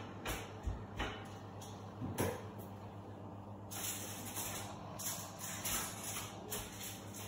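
Kitchen cooking sounds at a hob: scattered light clicks and knocks of a utensil and pan over a low steady hum, with a hiss coming in about three and a half seconds in and carrying on.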